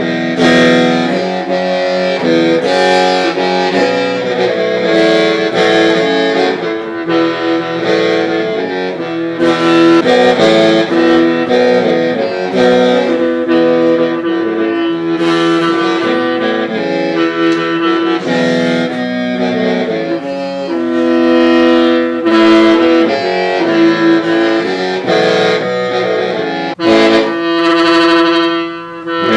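Hmong qeej (lusheng), a bamboo free-reed mouth organ, playing a melody of several held notes sounding together and shifting in steps, with a short break near the end.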